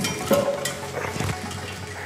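Hand chain hoist lifting a heavy, oily steel axle tube: a loud metal clank about a quarter second in, then chain rattling and small clinks, with oil splashing.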